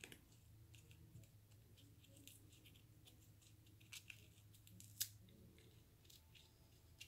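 Faint, irregular crackles and rustles of stiff paper as a firework rocket's rolled paper casing is worked apart by hand, with the sharpest snap about five seconds in and a steady low hum beneath.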